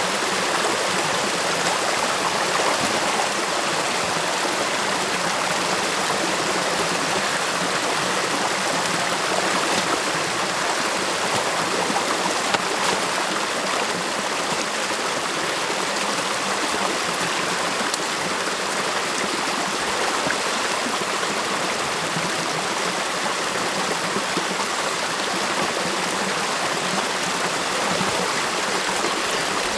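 Stream water rushing and gurgling steadily.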